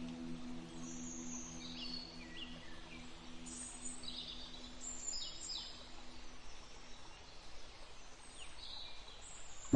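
Faint birds chirping, with short high calls and quick falling sweeps scattered through, over a held ambient music tone that fades out by about halfway.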